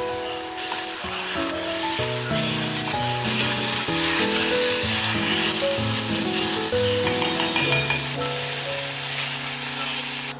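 Meat, red pepper flakes and minced garlic sizzling in hot oil in a stainless steel saucepan while being stirred with a wooden spatula. Soft background music plays underneath.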